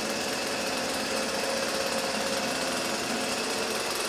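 Hitachi RB24EAP leaf blower's small two-stroke engine idling steadily with a fast, even firing pulse. Its fan retaining nut has just been tightened, the fix for a rattle this blower makes at idle.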